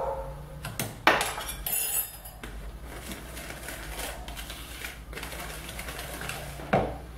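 Wire whisk stirring flour into chocolate cake batter in a bowl, its wires clicking and scraping against the bowl in short repeated strokes, with a sharp knock about a second in and another near the end.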